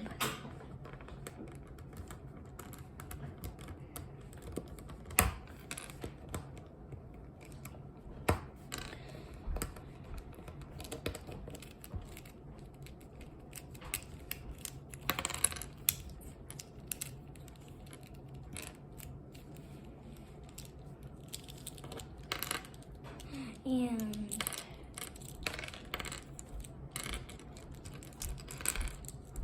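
Small plastic pieces of a mini Rubik's Cube clicking and snapping as it is handled and pulled apart, in scattered sharp clicks, the loudest about five and eight seconds in.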